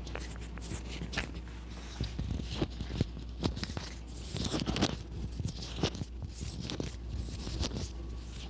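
Soft rustling and scraping with many small scattered clicks, from hands and clothing moving against the patient and the treatment table during a chiropractic adjustment. No single loud crack stands out.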